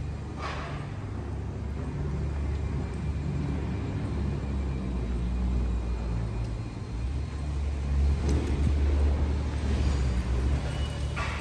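Busy city street ambience: a steady low traffic rumble with general street noise, swelling louder about eight seconds in.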